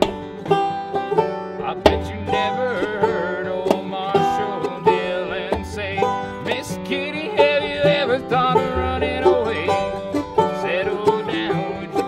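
Bluegrass string band playing an instrumental intro: quick picked banjo over plucked upright bass and other strings, with some bending notes in the middle.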